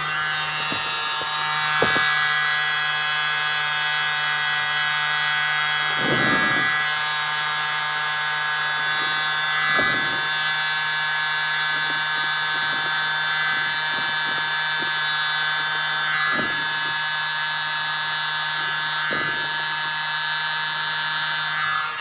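Small handheld mini air blower running steadily with a high motor whine, blowing across wet acrylic paint to push it out into a bloom. It cuts off at the very end, with a few light knocks of handling along the way.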